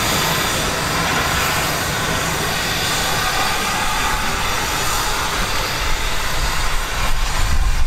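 Taff Vale Railway 0-6-2 tank engine No. 85 moving slowly on a goods train, with a steady hiss of steam. A low rumble grows louder over the last two seconds as the engine draws close.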